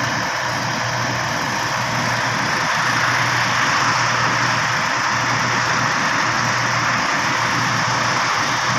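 Truck-mounted concrete boom pump running: a steady engine drone under an even hiss.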